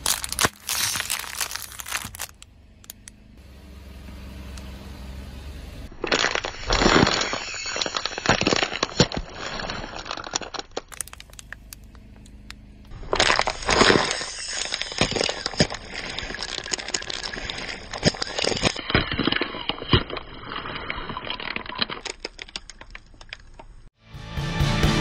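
Plastic bottles packed with water beads crackling and cracking as a car tyre rolls over and crushes them. The crushing comes in several separate runs, with quieter gaps between them.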